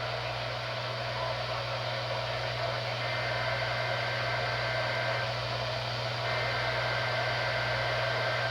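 Heavy static from a weak NOAA Weather Radio broadcast over a steady low hum, with the two-tone data bursts of a SAME alert header coming faintly through it twice, each about two seconds long, the first about three seconds in. The signal is so buried in noise that a receiver is doubted to decode it.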